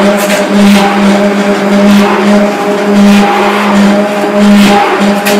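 Immersion hand blender running steadily, blending oat flakes in hot water. The hum swells and dips about once a second as the blender is worked up and down in the jug.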